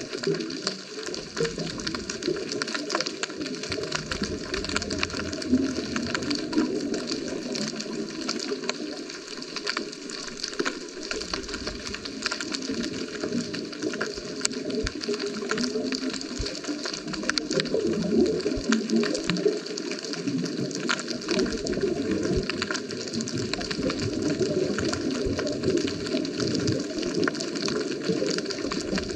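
Underwater sound heard through a GoPro's waterproof housing: a steady wash of water with many small crackling clicks scattered throughout.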